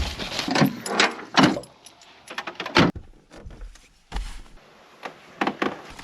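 Things being handled inside a car: a string of irregular knocks, clunks and rustles, like gear being moved and a door or window cover being shifted.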